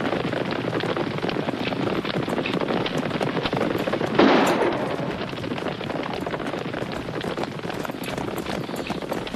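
Several horses galloping, a fast dense clatter of hooves on dirt. A single loud shot about four seconds in.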